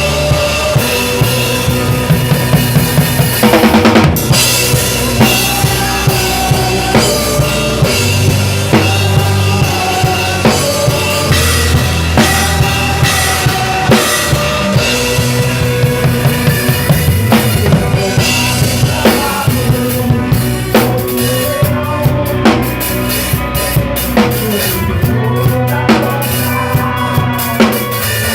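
Acoustic drum kit played along to a worship song's accompanying music, with steady bass drum, snare and rimshot hits. There is a loud crash about four seconds in.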